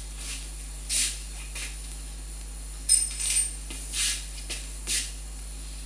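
Short clicks and light metallic clinks of small parts being handled inside a 3D printer's build chamber, about one a second, the sharpest about three seconds in with a brief ring. A steady low hum runs underneath.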